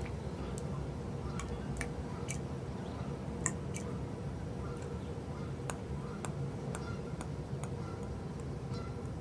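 Water dripping in a quiet room: sparse, irregular sharp drips over a low steady ambient hum.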